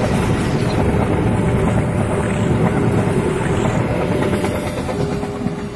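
Passenger train coaches rumbling and clattering past on the rails, the noise easing as the last coaches go by. A steady tone comes in near the end.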